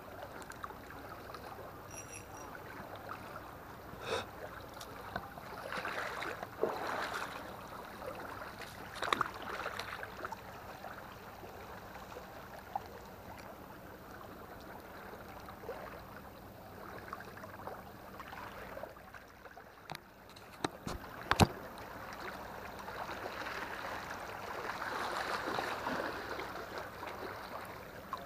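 Small waves lapping and splashing against a concrete seawall, with a few sharp clicks and knocks; the loudest click comes about 21 seconds in.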